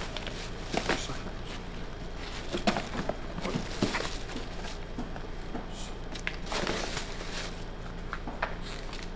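Plastic box liner crinkling and rustling as packs of meat are pressed down into a cardboard box, in irregular bursts over a steady low hum.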